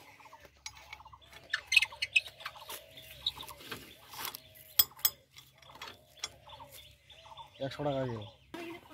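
Steel cultivator tine being scraped with a stick: scattered short scrapes and metallic clinks.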